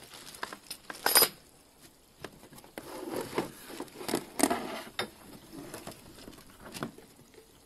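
Unpacking noises: plastic packaging rustling and the cardboard box and a lawn mower's folded handle being shifted, in scattered knocks, clicks and rustles. A sharp rustle about a second in is the loudest.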